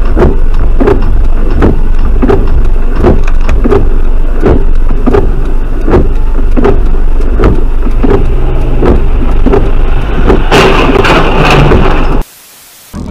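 Car noise heard through a dashcam: a very loud, steady low rumble with a regular click about one and a half times a second, and a rush of hiss about ten seconds in.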